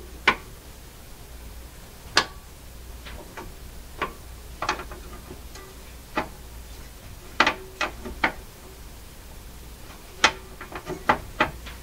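Pivoting metal record-support posts on a Philco 78-rpm record changer being turned and set by hand: scattered sharp clicks and light knocks, some in quick pairs or threes.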